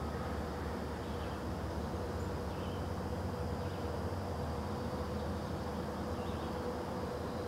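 Steady outdoor ambience: a constant high insect drone over a low rumble and a faint steady hum, with a few faint chirps.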